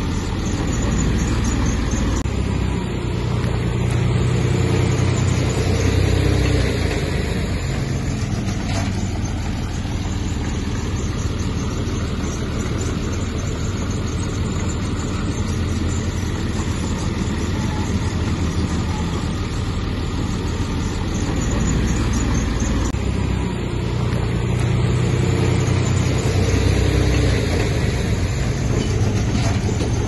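Heavy diesel earthmoving machinery running steadily, its engine note swelling louder twice.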